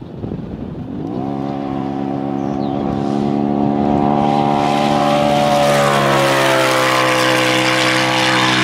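Polaris RZR Turbo S side-by-side's turbocharged twin-cylinder engine at full throttle through a four-wheel-drive launch. The revs climb about a second in and then hold at a high, nearly steady pitch, growing louder over the first few seconds.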